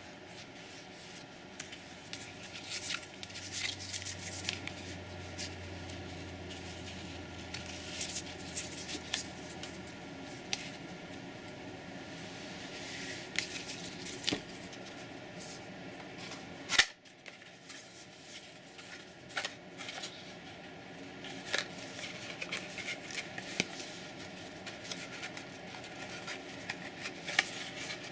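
Trading cards being handled: cards sliding and flicking against each other, with scattered light clicks and rustles from plastic and cardboard deck boxes. One sharp click about seventeen seconds in is the loudest sound.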